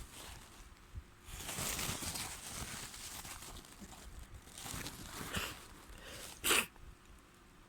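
A person with a head cold blowing their nose into a tissue for about three seconds, with tissue crinkling, then a short, sharp sneeze about six and a half seconds in.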